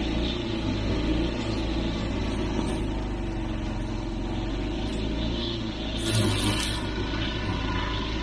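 Gasoline walk-behind lawn mower running steadily while cutting tall, overgrown grass, with a brief louder surge about six seconds in.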